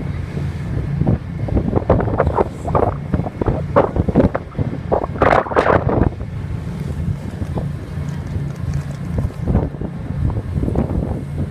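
Wind buffeting the microphone in irregular gusts, the strongest about five seconds in, over the steady low drone of a ferry's engines under way at sea.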